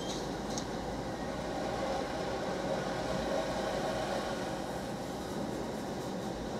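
Steady mechanical running noise heard from inside a car's cabin, swelling a little around the middle.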